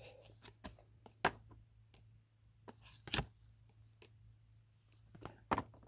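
Sports trading cards being handled and flipped through: scattered light clicks and taps, the sharpest about a second in and about three seconds in, over a steady low hum.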